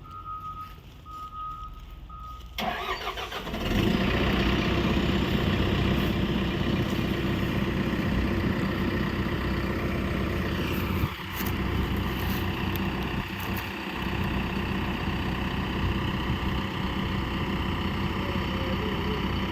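A repeated high electronic beep, then a heavy diesel engine starts about two and a half seconds in. It comes up to speed within a second or so and runs loud and steady, briefly easing off twice.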